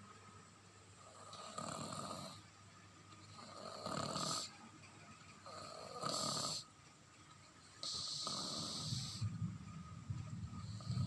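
Toddler snoring loudly in sleep: about five rasping snores, one on each breath, roughly every two seconds.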